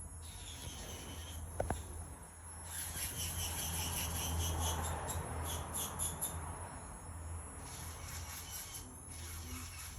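Pitbull puppy snoring in its sleep: one slow breath swells from about three seconds in and eases off after about seven seconds, with a high, fluttering chirr over it. A short sharp tick comes at under two seconds.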